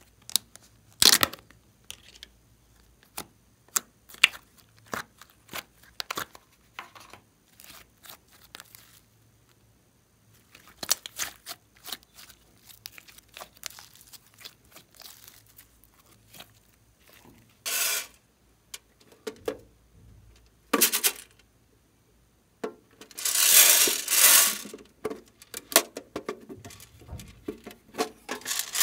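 Glossy slime mixed with glitter and small beads being squished, stretched and folded by hand: a string of sharp sticky pops and clicks, with a few longer tearing, crackling stretches, the loudest near the end.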